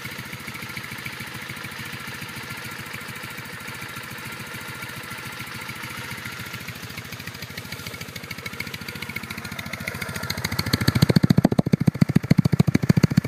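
2008 Triumph Bonneville T100's 865cc carbureted parallel-twin engine idling evenly, cold and running without the choke, with a quiet exhaust note through the stock silencers. Near the end the exhaust pulses come much louder and deeper, heard close to the chrome silencer.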